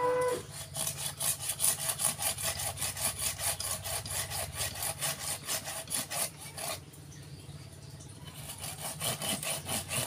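Small hand saw cutting back and forth through the woody trunk of a bonsai stock, quick even strokes about four or five a second, pausing briefly before a second spell of strokes near the end.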